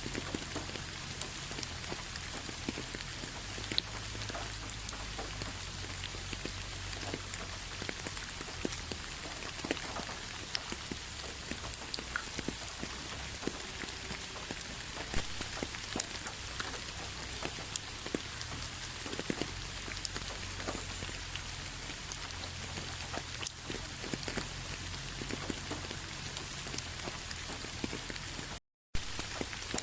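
Steady rain falling, an even hiss with many separate drops ticking close by over a low rumble. The sound cuts out completely for a split second near the end.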